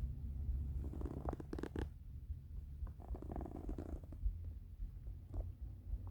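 Hungry, empty stomach rumbling: a constant low rumble with irregular gurgles over it, the loudest a little under two seconds in.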